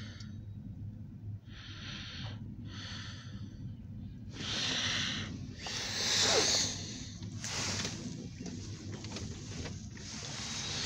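Steady low hum of a car idling, heard inside its cabin, with several short breathy hissing bursts over it, the loudest about six seconds in.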